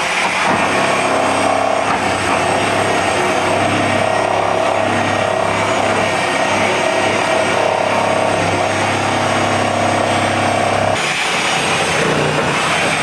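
A motor running steadily with a constant hum, its tone shifting about eleven seconds in.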